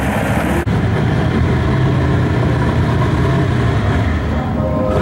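1964 Mopar drag-race V8s idling. Just under a second in the sound cuts abruptly to another engine, the red car's Hemi V8, running steadily at idle.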